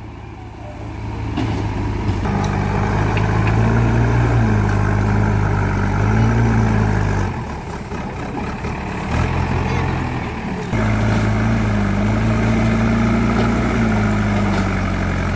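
JCB 3DX backhoe loader's diesel engine working under load, revving up over the first couple of seconds. It eases off twice, about seven and about ten seconds in, picks back up, and drops again at the very end.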